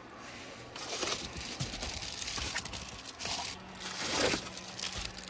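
Crinkly foil window cover being handled and pulled off a truck window, a run of irregular rustling and crackling that grows louder near the end.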